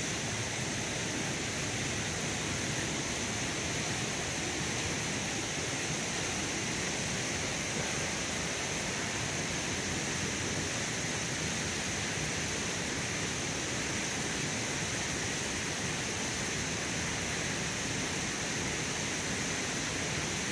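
Steady running water of a creek, with a constant high-pitched hiss over it.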